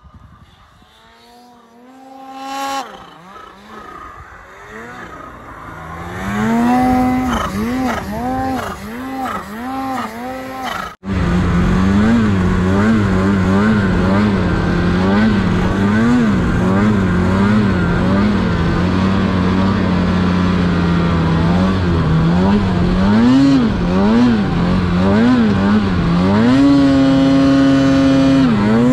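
Snowmobile engine revving, its pitch swinging up and down in repeated quick throttle blips. After a brief dropout it runs louder under steady throttle, pitch swelling and dipping, then climbs to a higher steady pitch near the end.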